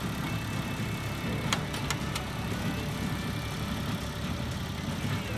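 Farm tractor engine running steadily while it pulls a small square baler working in a hayfield, with a few sharp clicks from the baler's mechanism about a second and a half in.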